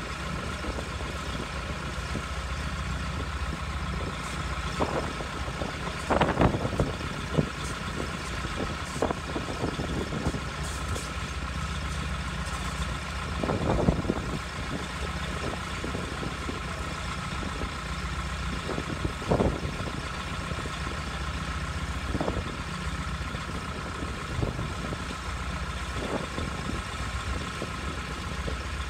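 An engine idling steadily with a steady whine above it, and occasional sharp metallic knocks and clanks several seconds apart, the loudest about six seconds in and again about fourteen seconds in.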